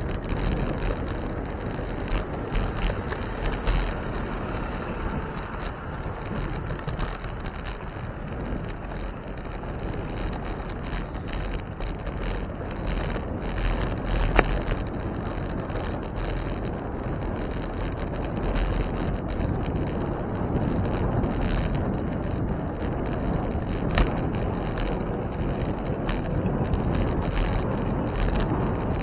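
Wind buffeting the microphone of a camera riding on a moving bicycle, over steady low road and tyre rumble. Two sharp knocks stand out, one about halfway through and another some ten seconds later.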